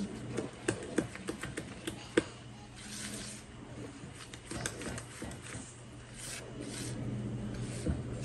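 Spatula stirring and scraping cornbread batter in a plastic mixing bowl, with a quick run of light clicks and taps against the bowl in the first two seconds, then softer scraping.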